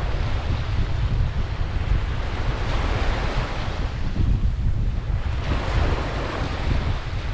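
Ocean surf washing onto a beach, swelling twice as waves break and run in, over a steady low rumble of wind buffeting the microphone.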